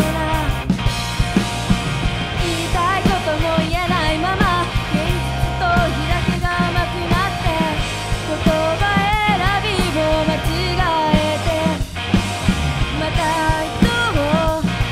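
Rock band playing live: drum kit, electric bass and electric guitar over a steady beat, with a bending melodic lead line on top.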